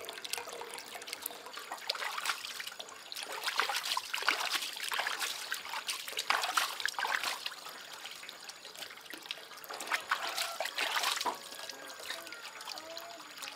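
Water splashing and trickling in irregular spurts, with small clicks and slaps in the water.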